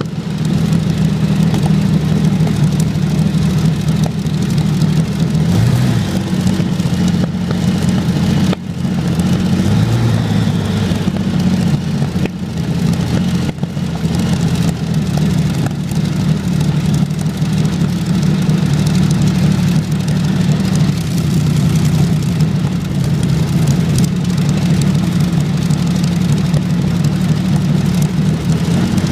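Rolls-Royce Meteor Mk IVB V12 tank engine, a petrol engine derived from the Merlin aero engine, running steadily on a static display stand, loud and even with little change in speed.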